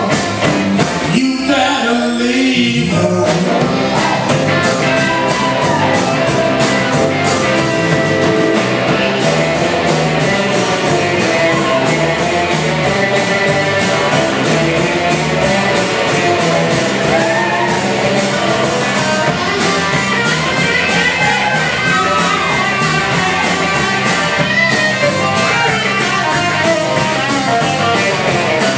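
Live rock band playing, with electric guitars over a drum kit keeping a steady beat. The low end drops out for about two seconds near the start, then the full band comes back in.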